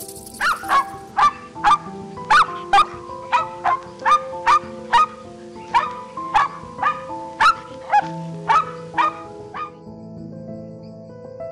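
Grey wolf giving a run of sharp, yelping barks, about two a second, each dropping quickly in pitch. The barks stop shortly before the end, over steady background music.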